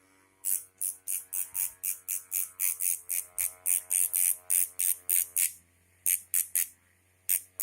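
Background music: a quick, even beat of bright hiss-like hits, about five a second, over held notes that change about two thirds of the way through, with a couple of short breaks near the end.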